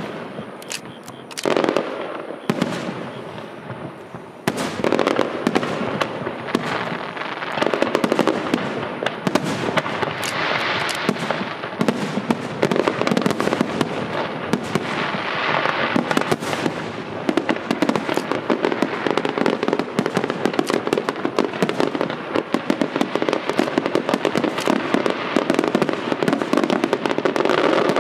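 Fireworks going off in a dense, continuous barrage of bangs and crackling. After a somewhat thinner first few seconds it becomes steady and loud from about four seconds in.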